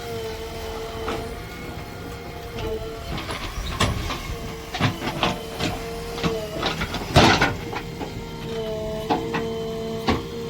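JCB 3DX backhoe loader running with a steady whine. From about three seconds in come a series of knocks and clatters, the loudest about seven seconds in, as it works loading mud.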